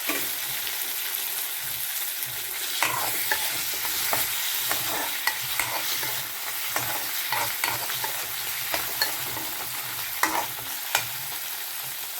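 Bamboo shoot and potato frying in oil in a pan with a steady sizzle, while a spatula scrapes and knocks against the pan at irregular moments as the mixture is stirred.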